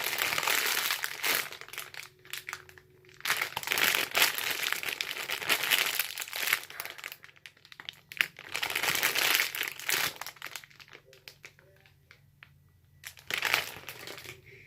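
Crinkly packaging of a squishy toy crackling as it is handled and squeezed, in several bursts with quieter gaps between.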